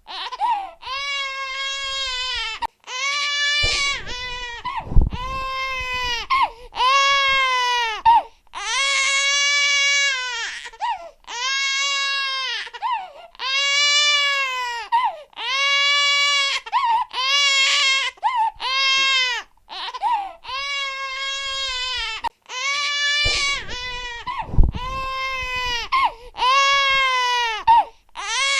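A baby crying loudly in a long run of wailing cries, each a second or two long and arching up then down in pitch, with short breaks for breath between them.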